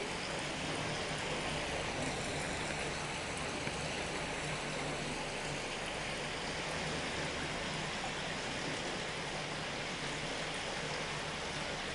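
Steady rush of water flowing through an irrigation channel basin.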